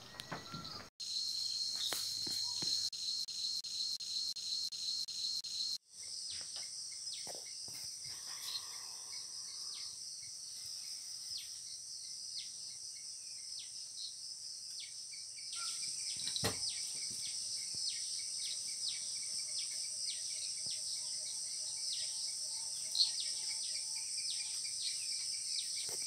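A chorus of insects chirring in a steady high-pitched drone. It breaks off sharply about a second in and again about six seconds in, and grows a little louder about fifteen seconds in.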